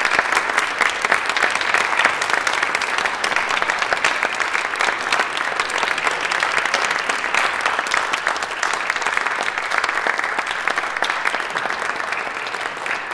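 Audience applauding: dense, steady clapping that eases slightly toward the end.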